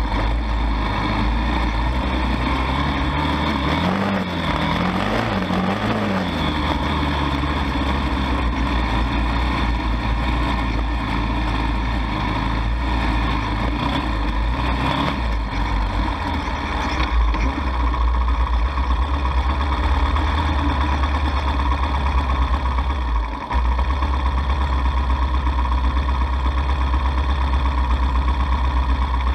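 ATV engine running steadily while riding along a dirt trail, its pitch wavering up and down a few times about four seconds in.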